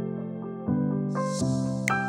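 Background music: gentle piano notes played one after another, with a brief soft hiss about a second in.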